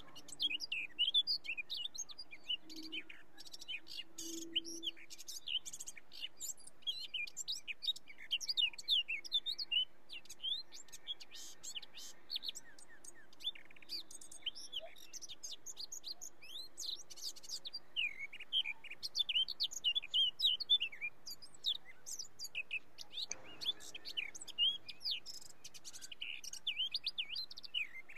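Dawn chorus of many small birds: dense, overlapping short high chirps and tweets from several birds at once.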